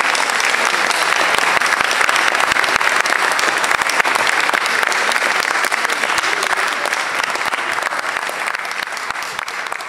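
Audience applauding, dense and steady, gradually thinning out and getting quieter near the end.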